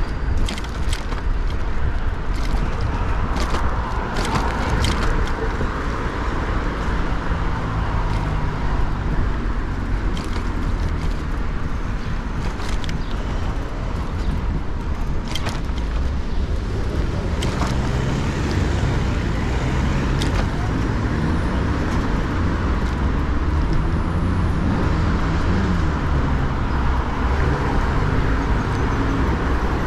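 Wind and road noise on a GoPro's microphone while riding a bicycle through city streets: a steady rumble with passing traffic, broken by scattered sharp clicks and rattles.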